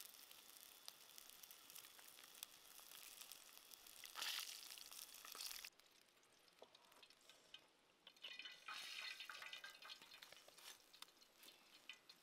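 Snake pieces frying in oil in a pan: a steady crackling sizzle, louder for a moment about four seconds in, that cuts off suddenly about halfway through. After that, a few short, faint handling and scraping sounds.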